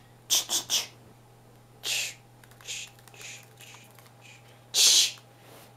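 Paper pages of a book rustling and crinkling in short bursts as a budgerigar pecks and tugs at them: three quick rustles at the start, a few softer ones, and a louder, longer rustle about a second before the end.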